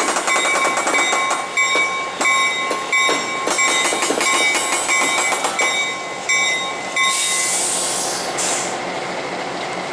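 Diesel switcher locomotive's bell ringing steadily, about two strokes a second, as the locomotive moves in slowly. About seven seconds in the bell stops and a burst of compressed air hisses for about a second and a half.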